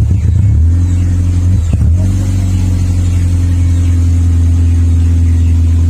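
Car engine running through a Spoon N1 exhaust muffler, with a deep exhaust note. It is uneven for the first couple of seconds, then settles into a steady idle.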